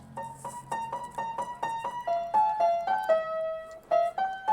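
A piano-like keyboard playing a simple melody of quick single notes that step up and down.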